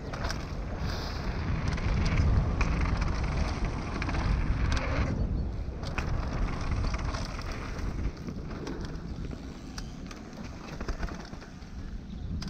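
Downhill mountain bike descending a trail: wind buffeting the action camera's microphone and tyres rolling over dirt, with scattered sharp clicks and knocks from the bike over bumps.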